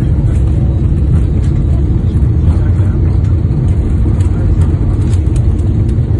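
Airliner cabin noise as the plane rolls down the runway after touchdown: a loud, steady low rumble of the engines and the wheels on the runway.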